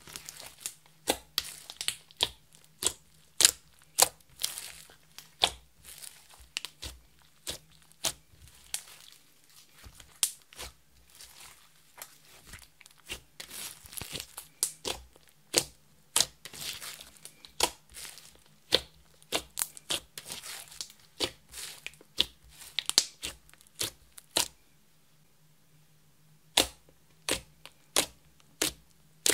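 Glitter slime, clear slime mixed with makeup and glitter, being kneaded, stretched and poked by hand: a stream of sharp, irregular clicks, pops and crackles. There is a short pause about three-quarters of the way through.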